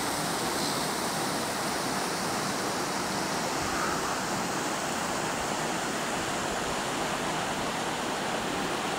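Water rushing steadily over a low weir and through gaps in a rocky causeway, a constant even rush.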